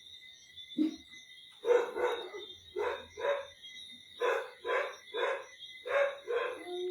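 A dog barking repeatedly, about eight short barks, several coming in quick pairs.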